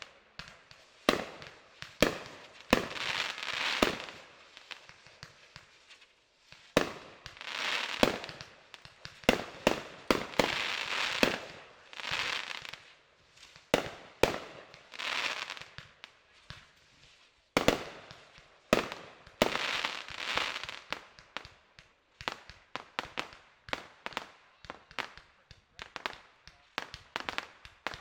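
Fireworks going off in a steady run: sharp bangs of bursting shells, several of them very loud, with repeated spells of dense crackling lasting about a second each.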